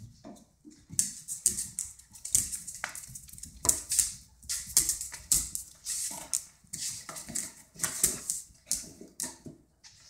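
Dogs play-fighting on a tiled floor: irregular quick clicks and scrabbles of claws on the tiles, with scuffling.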